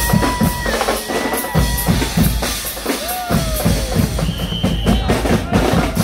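Guggenmusik band playing a loud drum-led passage: drum kit, bass drums and cymbals pounding a fast, steady beat. A few high held and sliding notes sound over the drums, a held note at the start and a falling glide about three seconds in.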